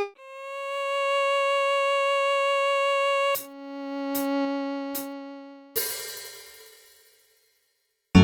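Instrumental backing-track music: a held synthesizer-like lead note with vibrato, then a lower held note under three sharp percussive hits. A cymbal-like crash follows and fades away, leaving about a second of silence near the end.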